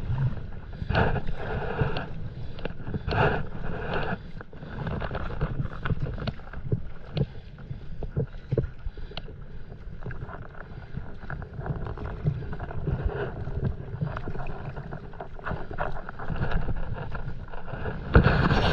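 A stand-up paddleboard on choppy sea: water splashing from paddle strokes and lapping against the board, with wind buffeting the microphone.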